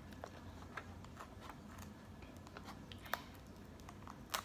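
Scissors snipping at the hard shell of a cooked king crab leg: faint scattered clicks and crunches, with a sharper crack a little after three seconds in and a few more near the end.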